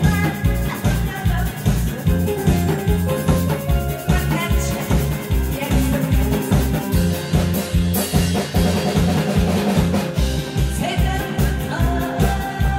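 A woman singing into a microphone over amplified music with a steady drum beat.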